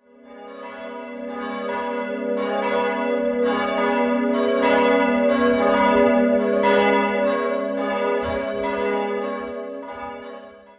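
Church tower bells ringing, with a fresh strike about once a second over a steady hum. The sound fades in at the start and fades down near the end before cutting off.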